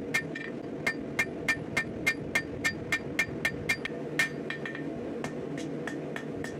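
Hand hammer striking red-hot steel bar on an anvil, about three blows a second, each with a short metallic ring, as a section of round bar is drawn out flat. The blows come lighter and further apart over the last two seconds.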